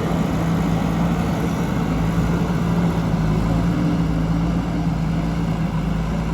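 Diesel engine of a JCB 3DX backhoe loader running steadily under work, a constant engine hum with no change in pitch.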